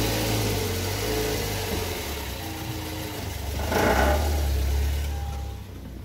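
Lifan X60 engine running as the car pulls away under load, with a brief, louder rattling burst about four seconds in. The rattle comes from the exhaust pipe's heat shield, which has broken loose from the pipe at its solder joint.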